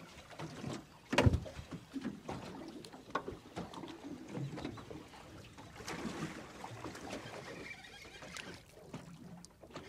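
Water slapping and sloshing against the hull of a drifting fishing boat, with scattered knocks and one loud thump about a second in.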